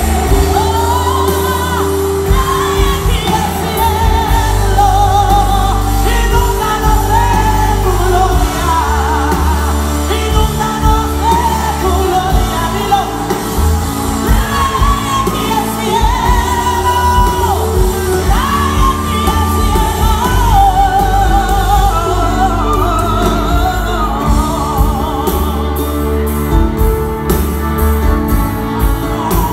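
Live worship band (electric bass, drum kit and keyboards) playing through the PA in a large hall while a woman sings the lead melody.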